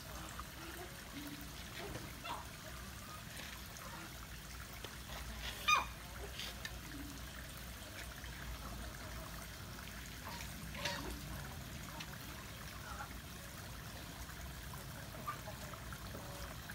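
Faint steady trickle of water under a low background hum, with a few scattered clicks, the sharpest about six seconds in.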